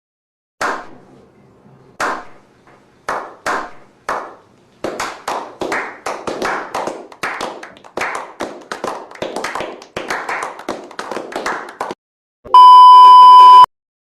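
A run of sharp taps, a few spaced ones at first, then quickening to about three or four a second, followed near the end by a steady high electronic beep lasting about a second.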